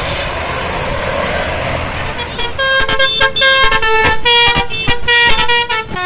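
Road noise of a coach passing at speed. About two and a half seconds in, a loud basuri 'telolet' bus horn starts playing a quick melody of short honked notes, about three a second.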